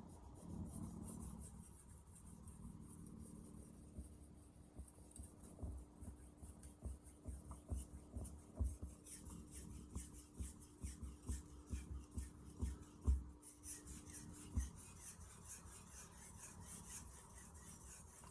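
A Blue #2 carbon-steel santoku blade being stroked back and forth on a whetstone. It makes a rasping scrape with a light knock at each stroke, about two strokes a second, and the knocks stop a few seconds before the end.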